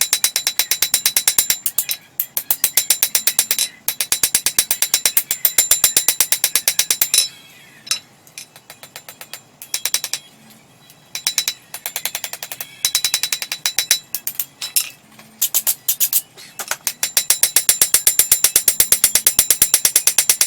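Rapid hammer blows on hot coil-spring steel over an anvil, ringing sharply, in quick runs of several strikes a second broken by short pauses. The blade is being straightened and planished smooth.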